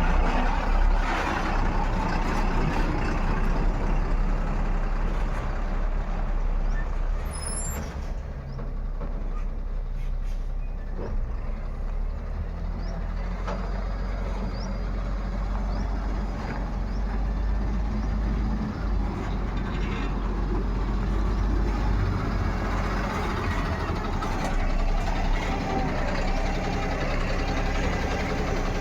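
Diesel engines of a JCB 3DX backhoe loader and a dump truck running steadily under work, a continuous low engine drone.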